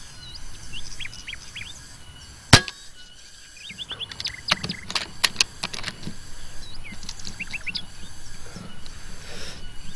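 A single sharp rifle shot about two and a half seconds in, fired at a squirrel in a coconut palm. Short rising chirps come before it, and a cluster of quick clicks with more chirps follows a second or two later.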